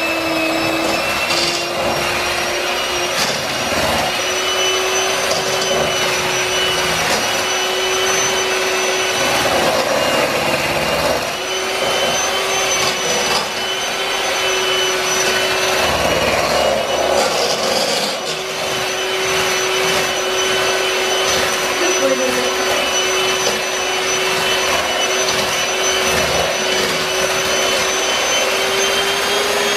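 Electric hand mixer running steadily on medium speed, its beaters whipping boiled potatoes into mashed potatoes in a pot. The motor holds one steady pitch, with a few brief scrapes or knocks as the beaters work the pot.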